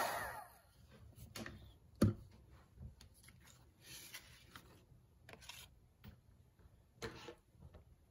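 A heat gun switching off, its blower whine dying away in the first half second, followed by light handling sounds: a sheet of vellum being lifted and rustled off a metal baking tray, with a sharp knock about two seconds in and another about seven seconds in.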